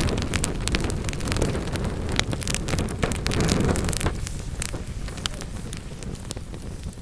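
Wood fire burning in a fireplace, crackling with many sharp pops over a low rushing roar of the flames. The roar is strongest in the first half and eases after about four seconds, while the pops carry on.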